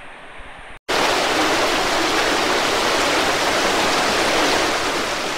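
Rushing white water: after a brief cut to silence just under a second in, a loud, steady, even roar of fast water.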